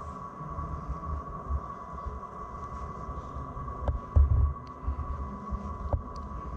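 Handheld camera handling noise: irregular low thumps and rumble as the camera is carried and moved. A steady high-pitched whine runs underneath, and a few small clicks come about four and six seconds in.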